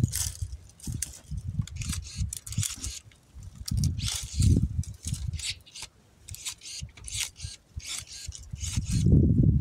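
Pruning shears snipping and branches rustling as tangled brush is cut back, in irregular short crackly bursts with low rumbling bumps between them.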